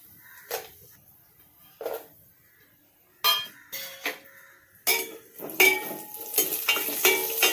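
Metal clinks and taps on a stainless-steel pot as dry nuts are tipped in from a small steel bowl and stirred with a spatula. A few separate taps in the first half, then a busy run of clinks and scrapes with the pot ringing from about three seconds in.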